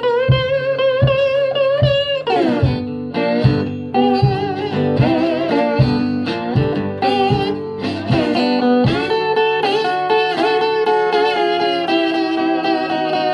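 Resonator guitar playing a slide-style blues instrumental, with wavering, gliding notes and a downward slide about two seconds in, over a steady low beat.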